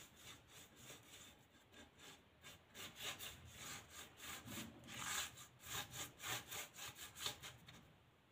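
Bristle paintbrush scrubbing oil paint back and forth across a painted plywood board, a dry scratchy rubbing in quick repeated strokes, about two or three a second. Faint at first, loudest through the middle, then fading near the end.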